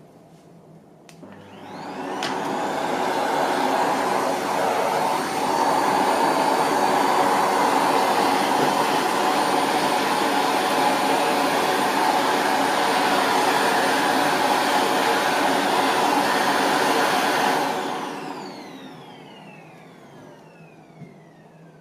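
Vacuum cleaner switched on with a click about a second in, its motor whine rising as it spins up. It then runs steadily and loudly until it is switched off about four seconds before the end, the whine falling as the motor winds down.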